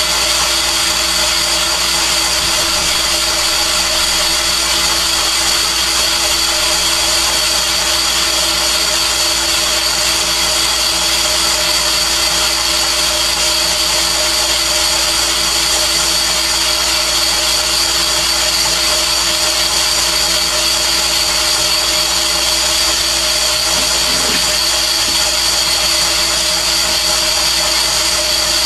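Van Norman 777 boring bar running, its spinning cutter taking metal off the wall of an engine cylinder to bore it 40 over. A constant machine whine with a steady high-pitched tone.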